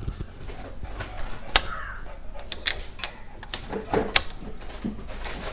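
Sharp metallic clicks and knocks from a flat-head screwdriver being levered between a motorcycle rear shock absorber's coil spring and its top fitting to push the spring down. The loudest click comes about a second and a half in, with a cluster of knocks around four seconds in.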